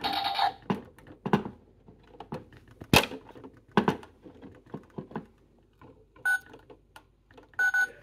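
Plastic toy washing machine being handled: irregular clacks and knocks as clothes are pushed into its drum, with one louder knock about three seconds in. Two short electronic beeps from its buttons come near the end.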